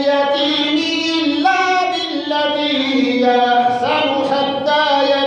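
A single voice chanting Quran recitation in long, held melodic notes. The pitch steps up about a second and a half in and glides up again near the end.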